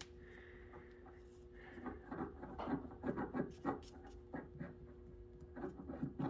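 Handling noise of a small model-engine crankshaft assembly being turned and fingered in its aluminum crankcase: soft, irregular clicks and knocks of metal parts, starting about two seconds in, over a faint steady hum.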